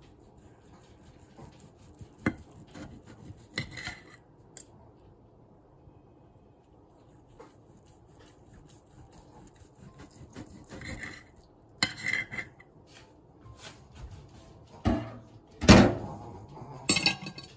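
A metal fork clinking and scraping against a ceramic plate as pieces of boiled pork are moved about: scattered irregular knocks, the loudest cluster coming near the end.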